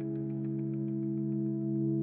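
Background music: a sustained ambient chord held steadily, with a faint regular tick about four times a second.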